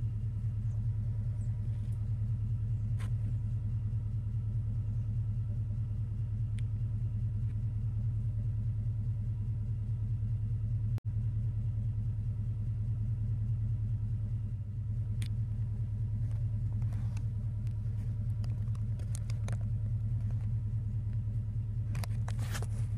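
Steady low rumble that does not change, with a brief cut-out about halfway through and a few faint ticks and rustles.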